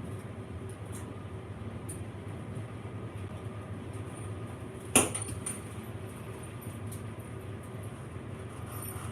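Steady low hum in an electrical room, with a single sharp metallic knock about five seconds in: pliers struck like a hammer.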